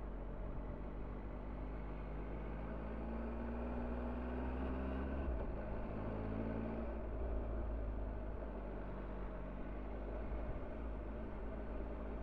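Motorcycle engine running under way with a steady low rumble of road and wind noise; the engine note rises a few seconds in, then drops as the bike eases off.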